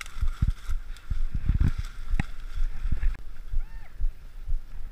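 Footsteps crashing through dense dry undergrowth: twigs snapping and branches scraping, with low thuds of each stride jolting the carried camera.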